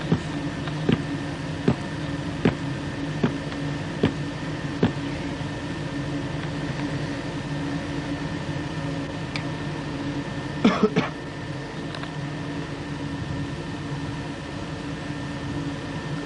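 Vehicle engine running with a steady hum. Light clicks come about every 0.8 seconds for the first five seconds, and a short rattle of knocks comes about eleven seconds in.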